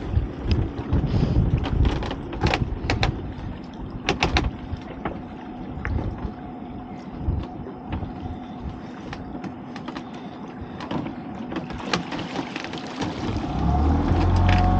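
A small boat's outboard motor running, with irregular knocks and clatter on board as a lobster pot is hauled up. Near the end the motor is throttled up and runs louder and steadier as the boat pulls away.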